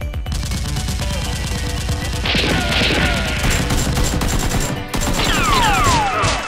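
Rapid gunfire sound effects over action music with a steady low beat. A crash-like burst of noise comes a little over two seconds in, and several falling whistles come near the end.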